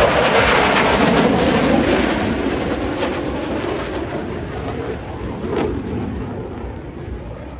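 Jet engine noise from Blue Angels F/A-18 Super Hornets flying low overhead during a tight crossing turn: a loud rumbling roar whose pitch drops early on, then fades steadily as the jets pull away.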